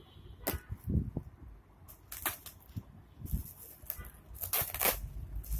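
Cardboard and plastic packaging being cut open and handled: scattered rustles, scrapes and light knocks, with a louder crinkling rustle near the end.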